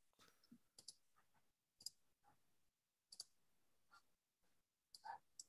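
Faint, scattered clicks of a computer mouse, about five over the stretch, with near silence between them.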